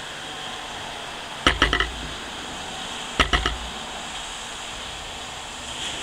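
Two quick clusters of sharp knocks, three or four hits each in under half a second, about a second and a half apart, over a steady background hiss.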